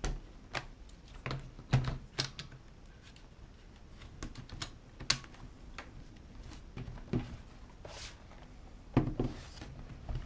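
Hands handling a laptop, with a dozen or more irregular light clicks and plastic knocks as it is set up and switched on, and a brief rustle near the end.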